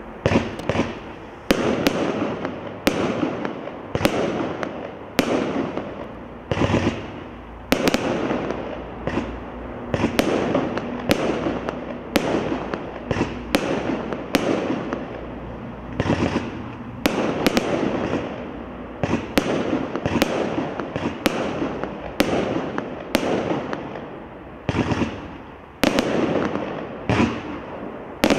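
Mystical Fireworks "All Yellow" 29-shot fireworks cake firing its shots of large floral bursts in quick succession: a sharp bang about every second, sometimes two close together, each trailing off into a fading rumble.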